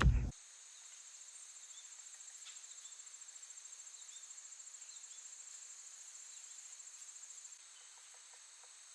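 Insects trilling: a steady, high-pitched buzzing chorus, with one fast, evenly pulsed trill over it that stops about three-quarters of the way through.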